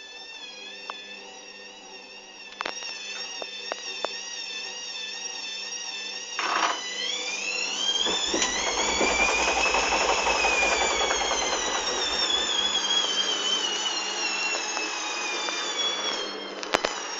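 Hoover Dynamic washing machine in its spin cycle with an unbalanced load. The motor whines with a wavering pitch and a few clicks, then speeds up, the whine climbing to a peak about ten seconds in with a low rumble from the drum, then slowly falls away. A sharp click comes near the end.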